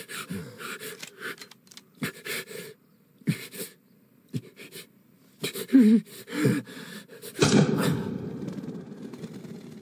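A voice making short wordless gasps and groans, in bursts a second or so apart. About seven and a half seconds in, a sudden loud rush of noise starts and slowly fades.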